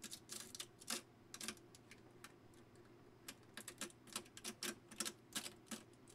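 Irregular small clicks and crackles of a 3D-printed plastic model being pried and snapped loose from its raft on a MakerBot Thing-O-Matic build platform.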